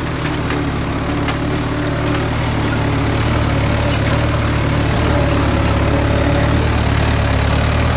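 Mahindra 585 DI XP Plus tractor's four-cylinder diesel engine running steadily under load while pulling a plough, with a few light knocks in the first second or so. The engine is labouring: the owner says it drops RPM under the plough's load even in low third gear.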